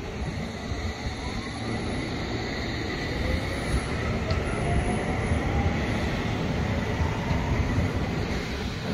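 London Underground S7 Stock train pulling out of the platform. Its wheels on the rails give a steady rumble that grows louder a few seconds in, under a faint whine of the motors rising in pitch as it gathers speed.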